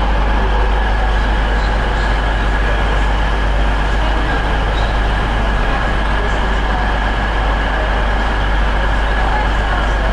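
Diesel passenger train standing with its engine idling: a steady, unbroken drone with a constant high whine over it.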